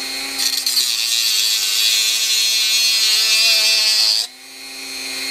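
Dremel rotary tool running with a steady high whine while scoring into a power bank's casing: the grinding of the bit against the case starts just under half a second in and stops just past four seconds, the motor's pitch sagging slightly under the load. After that the tool spins freely for the last second.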